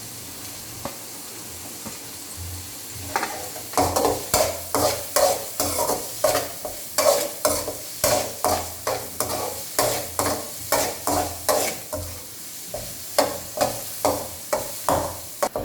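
Fish cake, onion and chilli frying in oil in a pan with a steady sizzle. From about three seconds in, a spatula scrapes and stirs through the pan in quick repeated strokes, about two a second.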